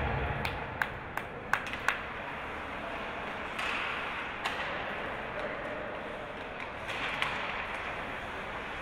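Sharp clacks of hockey sticks and puck during play: four in quick succession in the first two seconds, then a couple more spaced out, over steady background noise.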